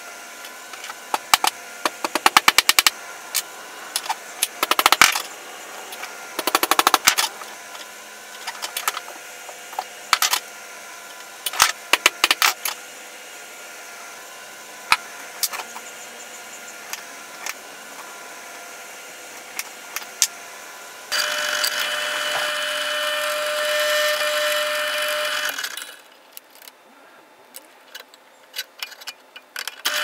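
Sharp metallic taps and clinks from hand tools working small brass parts at a bench vise, some in quick rattling runs. About 21 s in, a drill press runs steadily for about five seconds and then stops.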